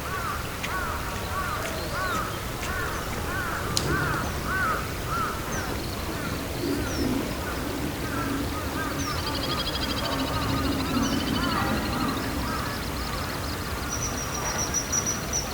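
Wild birds calling outdoors. A fast run of short rising-and-falling notes fills the first six seconds or so, with a low steady hum in the middle. High, thin trills come in from about nine seconds and again near the end.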